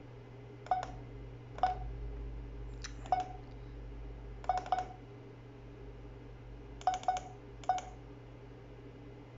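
Keypad beeps from a ZKTeco F18 access-control terminal as its buttons are pressed, one short beep per press. They come singly or in quick groups of two or three, with pauses between, as letters are entered by tapping the same key repeatedly.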